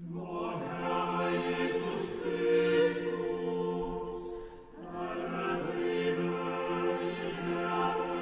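Mixed chamber choir singing with a cello, a low note held steady beneath the voices. The singing thins out briefly about four and a half seconds in and then comes back in.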